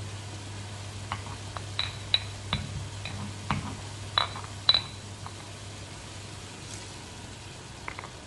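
Light clinks of metal or glass kitchenware, about a dozen in quick succession over roughly four seconds and two more near the end, over a steady low hum.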